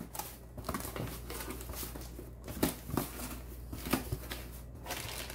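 Cardboard box being handled and its flaps pulled open: irregular scrapes, taps and rustles of cardboard, over a steady low hum.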